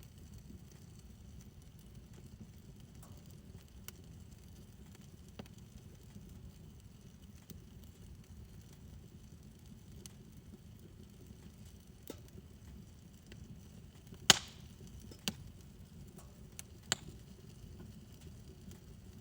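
Wood fire burning in a fire pit: a low steady rumble with sparse faint crackles and a few sharp pops, the loudest about two-thirds of the way through and two smaller ones soon after.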